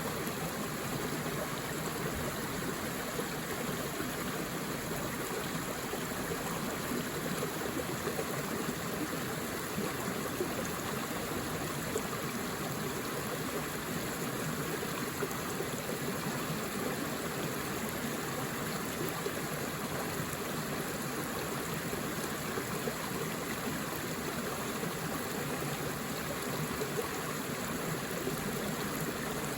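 Forest river flowing over rocks: a steady rushing and babbling of water with small gurgles.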